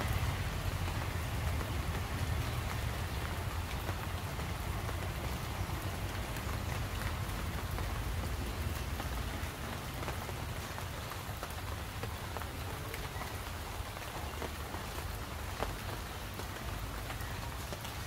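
Steady rain pattering on leaves and ground, many small drop ticks over an even hiss, with a low rumble underneath.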